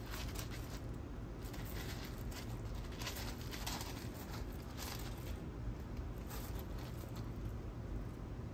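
Dry uncooked elbow macaroni rustling and clattering irregularly as two ferrets burrow and scramble through it in a plastic bin.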